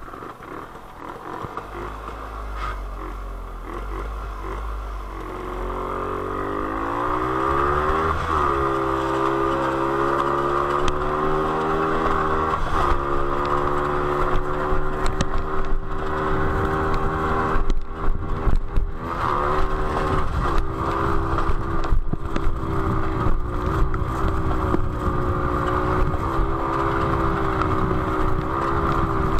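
Jawa 250/353 motorcycle's single-cylinder two-stroke engine accelerating, its pitch rising over several seconds, then running hard at a fairly steady high pitch with small dips. A rushing noise and scattered clicks from wind and dirt sit under the engine throughout.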